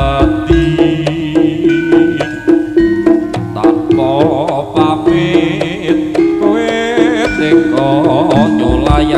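Loud Javanese jaranan gamelan music: quick hand-drum strokes over a steady held tone, with a wavering melody line above.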